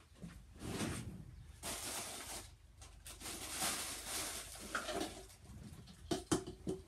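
Plastic dishes and cups being rummaged through: irregular rustling with a few light knocks.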